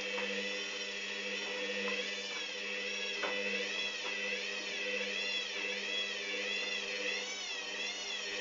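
Hoover Dynamic washing machine motor whining through a spin, its pitch wavering up and down about one and a half times a second over a steady low hum, with a few light clicks. This is the sign of the drum wobbling with an unbalanced load.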